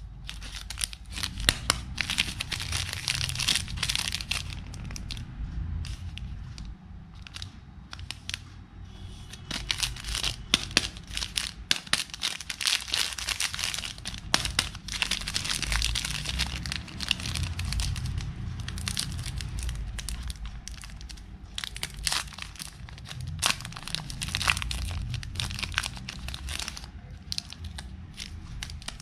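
Cadbury Dairy Milk chocolate bar being unwrapped by hand: the plastic wrapper crinkles and tears in repeated irregular bursts, and the foil around the bar rustles.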